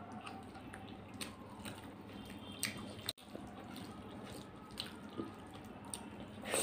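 Close-up eating sounds: chewing and mouth sounds of rice and chicken curry eaten by hand, with fingers working rice on a brass plate, heard as scattered small clicks and a louder burst near the end.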